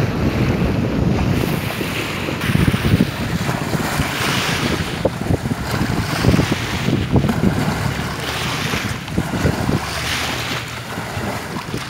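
Strong wind buffeting the microphone, over small choppy lagoon waves splashing and washing against a grassy bank in repeated surges.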